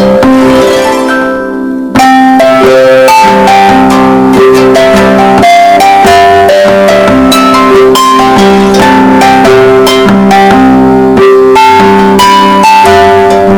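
Samsung phone ringtone or notification melody in plucked, guitar-like tones, over-amplified and distorted to near full volume ('earrape'). One melody fades out and another starts abruptly about two seconds in.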